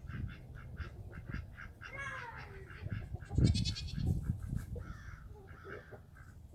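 Chickens clucking in quick repeated notes, about four or five a second, with a short arching squawk about two seconds in and a brief high call a little later. Low thumps come through at the same time, loudest about three and a half seconds in.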